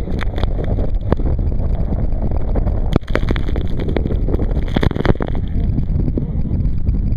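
Steady rush of a high-water whitewater rapid around a raft, with waves slapping and splashing over the boat in a run of sharp hits, thickest in the middle; wind and spray buffet the microphone.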